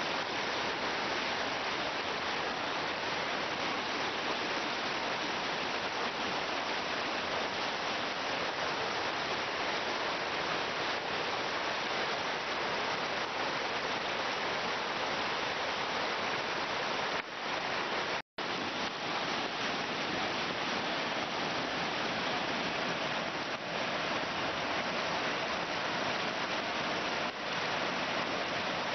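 Steady rush of a swollen stream in flood, muddy water churning fast over its banks. The sound drops out for an instant about two-thirds of the way through.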